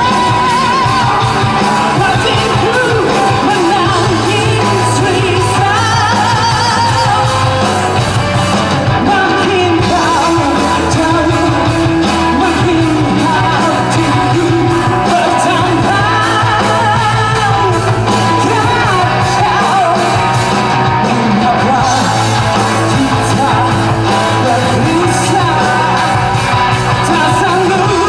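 Live indie rock band playing a song with a singer's voice over the instruments, loud and unbroken.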